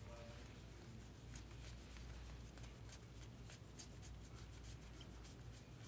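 Faint, quick, irregular flicks and rustles of paper baseball trading cards being thumbed through one at a time from a stack, over a low steady hum.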